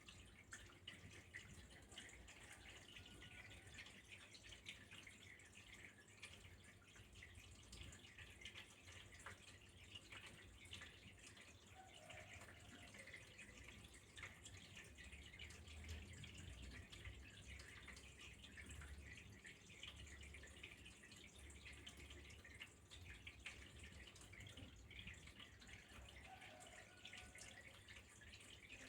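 Faint, steady trickle of flowing water with a dense patter of small drips, and a low hum underneath.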